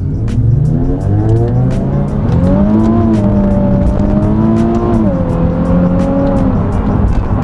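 Nissan 370Z Nismo's 3.7-litre V6 accelerating, revs climbing over the first couple of seconds and then holding. The pitch drops about five seconds in as the 7-speed automatic shifts up, and the engine eases off near the end.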